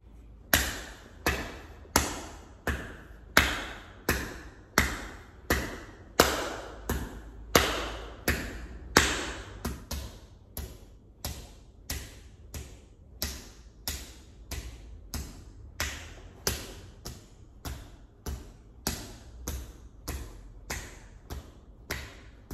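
Repeated hand strikes on a wrapped striking block set on a stack of pads for karate hand conditioning, each a sharp slap-thud with a brief ring. The strikes come steadily a little under a second apart, then speed up to about two a second and get slightly softer about halfway through.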